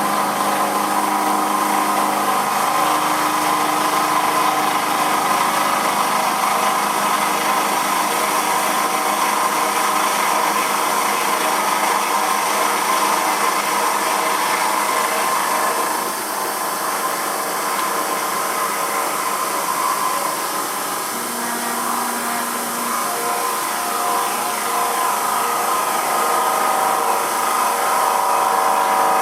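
Emco F1 CNC milling machine running a 12 mm four-flute carbide cutter, roughing down the top face of a cast aluminium casting. It is a steady machine whine with a slight drop in level about halfway through.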